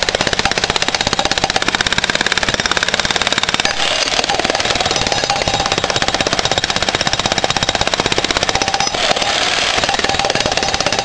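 Electric jackhammer breaking up old concrete, a steady rapid hammering of many blows a second.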